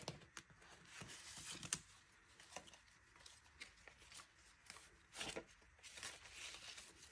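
Paper banknotes rustling faintly as they are pulled from a clear plastic binder pocket and fanned through by hand to count, with a few soft ticks.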